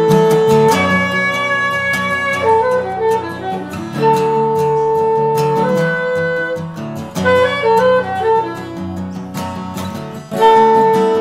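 Instrumental music: a melody of long held notes that steps up and down, phrase returning about every five or six seconds, over a plucked accompaniment.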